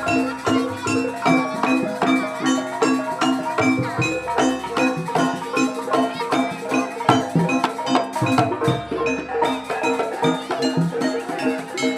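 Jaranan gamelan music: tuned bronze metallophones play a fast, steady repeating pattern over drums.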